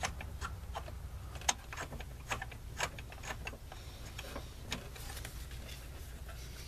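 Light metallic clicks and ticks, irregular and about two or three a second, as a bolt is worked into a Honda J35 V6's engine mount by hand and tool, over a low steady hum.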